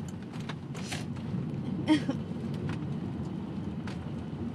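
A single hiccup about two seconds in, a short sharp catch of the voice, over a steady low rumble.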